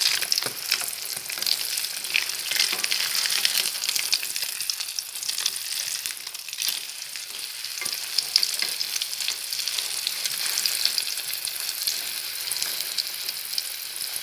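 Beaten eggs sizzling and crackling in hot pork fat in a wok, the eggs already setting and drying, with chopsticks now and then clicking against the pan as they stir.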